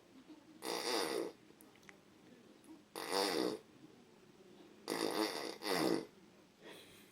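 A sleeping man snoring: four rattling, fluttering snores, roughly two seconds apart, with the last two coming close together.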